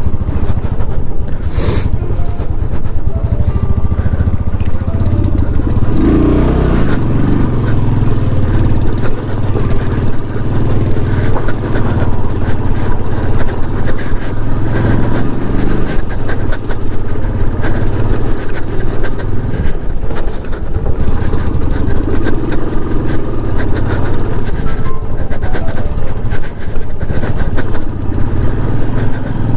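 Royal Enfield Classic 350's single-cylinder engine running steadily as the bike rides over a rocky dirt track, with a sharp knock about two seconds in.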